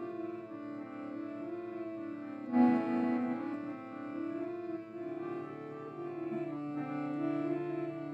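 Slow instrumental music of long held notes, with a louder entry about two and a half seconds in.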